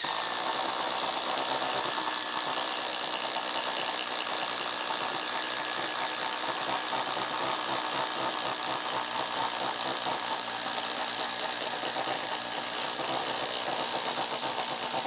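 Ryobi HP impact driver hammering without a break as it bores a 1½-inch spade bit through a thick wooden beam, its impact mechanism working hard under the heavy load.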